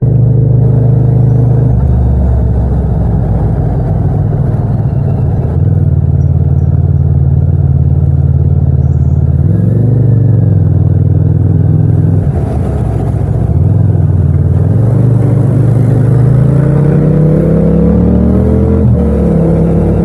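Yamaha MT-07's parallel-twin engine running at low revs under way, recorded raw without wind noise. The revs dip around twelve seconds in, then climb steadily from about sixteen seconds, falling off suddenly near nineteen seconds.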